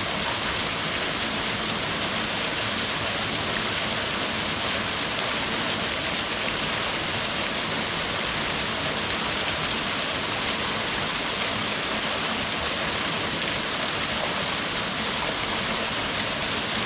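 Small waterfall: a steady, unbroken rush of falling water.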